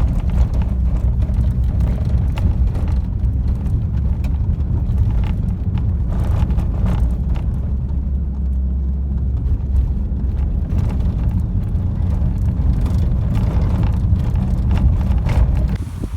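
A car driving, heard from inside: a loud, steady low rumble of road noise with scattered small knocks from the bumpy road surface.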